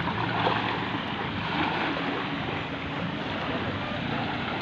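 Wind buffeting the microphone over small waves lapping at the shoreline, a steady rushing noise with no clear pitch.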